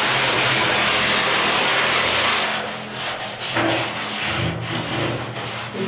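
Scrubbing the edge of a soaped bathroom door and its frame: a steady, dense rubbing for about two and a half seconds, then quieter, broken strokes.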